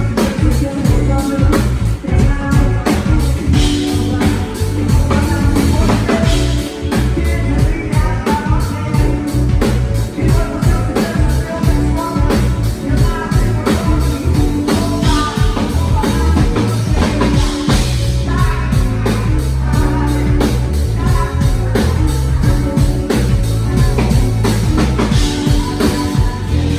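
A rock band playing a song through a sound-check, with drum kit, bass, electric guitar and a singing voice over a steady beat.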